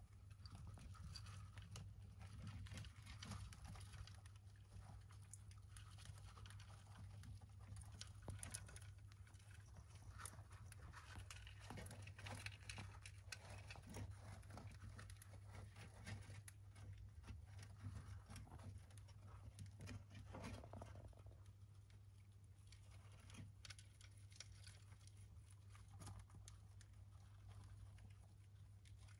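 Faint, irregular rustling, scratching and small clicks of young dwarf hamsters moving about in wood-chip bedding and nibbling food from a plastic dish, over a low steady hum.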